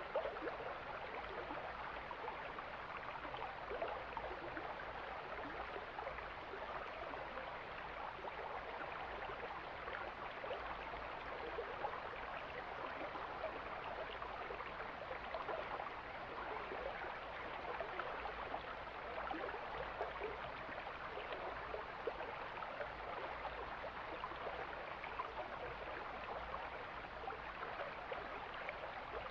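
Mountain stream flowing: a steady, unbroken rush of running water.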